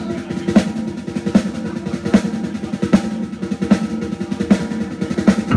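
Live band's drum kit playing a steady beat, a heavy hit about every 0.8 seconds with quicker, lighter strokes in between.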